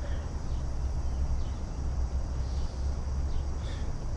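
Outdoor ambience: a steady low rumble under a faint, even high insect drone, with a few faint short falling chirps about once a second.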